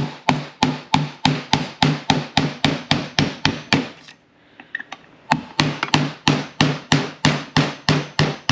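Hammer striking a 5/32 pin punch to drive a roll pin out of a shift fork in an M5R1/M5R2 manual transmission shift tower: steady blows about four a second, each with a short metallic ring. The blows pause for about a second around the middle, then resume.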